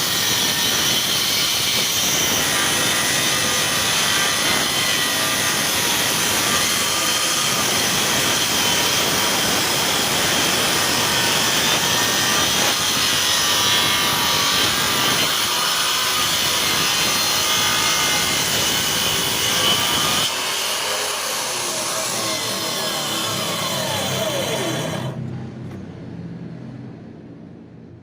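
Power tool working wood, running steadily under load. Near the end its pitch falls as it winds down, and the sound stops a few seconds before the close.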